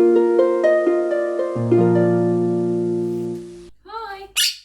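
Short harp-like intro jingle: plucked notes rising one after another into a held chord with a deep bass note, fading out about three and a half seconds in. Then, near the end, a Quaker parrot gives a few short calls that bend up and down in pitch, the last a sharp high screech.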